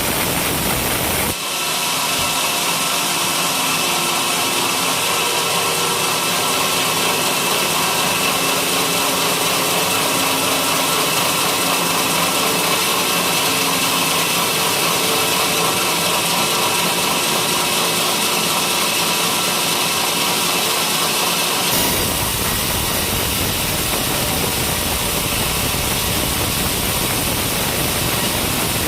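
Sawmill cutting coconut-palm timber: a steady, loud run of saw and motor with a high whine, changing abruptly about a second in and again near the end.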